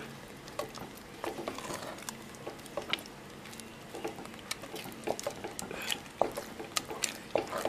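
Wet rice-flour dough being mixed by hand in a stainless steel bowl: soft, irregular squelches with light clicks and taps.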